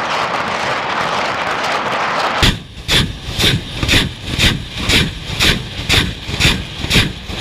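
Tornado-G multiple rocket launcher firing a salvo of 122 mm rockets. First there is a continuous roar. About two and a half seconds in, it turns to separate launches close by, about two a second, each a sharp blast.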